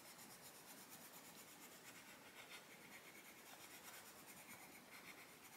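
Faint, steady scratching of a Castle Arts Pasteltint coloured pencil shading on a colouring-book page.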